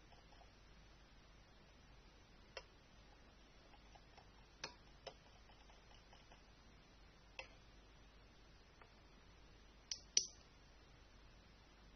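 Near silence broken by a handful of scattered light clicks and taps, a pair of louder ones near the end.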